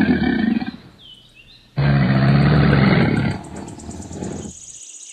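Crocodile growling: a deep, rumbling growl that ends less than a second in, then a second, longer one starting about two seconds in and fading away.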